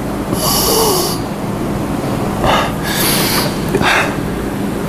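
A man breathing and sniffing close to a microphone, three short breaths or sniffs, over a steady loud hiss with a faint low hum.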